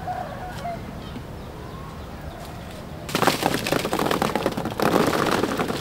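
Green apples tumbling and clattering out of a small bamboo basket into a larger woven bamboo basket, in two pours starting about three seconds in.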